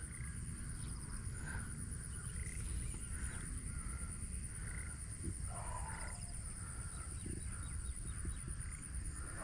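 Faint outdoor ambience: a steady low rumble of wind on the microphone, with scattered faint short animal calls in the distance.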